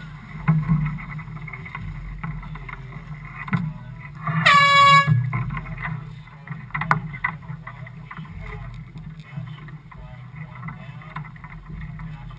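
One short air horn blast about four and a half seconds in, under a second long, its pitch rising slightly as it sounds. It is the sound signal given with a flag change in a match-racing starting sequence. A steady low rumble runs underneath.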